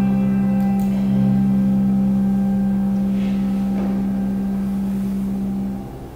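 Handbell choir's closing chord ringing on, with low bass handbells sustaining a deep steady tone while the higher bells fade. The whole chord is damped and stops abruptly near the end.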